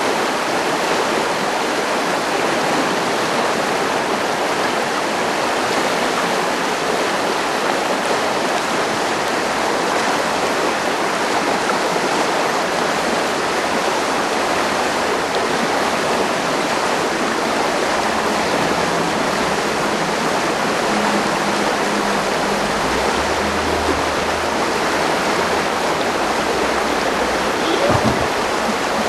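Steady rushing of a river flowing over rocks. Near the end, a short thump of a climber dropping onto a crash pad.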